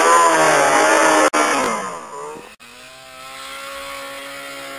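Snowmobile engine revving high with a wavering pitch. After about a second and a half the revs drop and fall away, and a quieter snowmobile engine runs at a steady, lower pitch.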